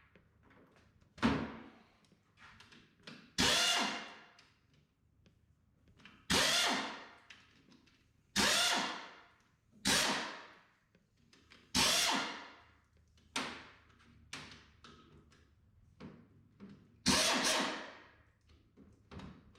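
Handheld power tool run in short trigger bursts, about nine of them a second or two apart, each starting sharply and fading away, as the bolts of the IH 140 touch control box's bottom cover are backed out.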